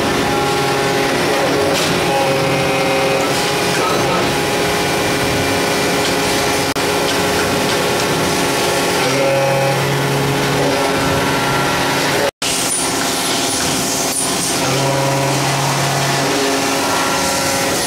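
Alpha 500-ton powder compacting press (model 503D-17L) running as it presses powder metal parts: a loud, steady mechanical drone with a low hum that swells in for a second or two every several seconds, following the press cycle.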